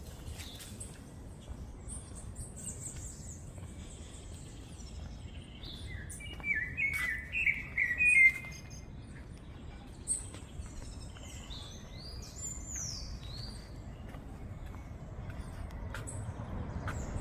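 Songbirds chirping and calling, with a loud run of quick chirps about halfway through and higher falling whistles a little later, over a steady low background rumble.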